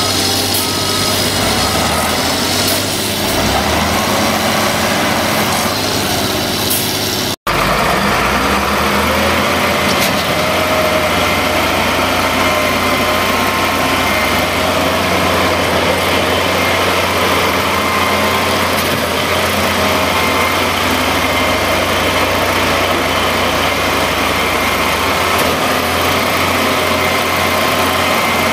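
Wheel loader diesel engines running steadily. The sound drops out for an instant about seven seconds in, then another loader's engine runs on with a faint wavering whine over it.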